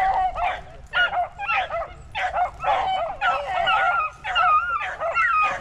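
Beagles baying on a rabbit's trail, several dogs' voices overlapping in quick, repeated yips and bays.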